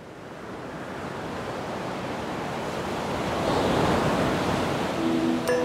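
A steady rushing noise, like surf or wind, swelling gradually louder over several seconds. Near the end, music comes in with held low tones and a chime strike.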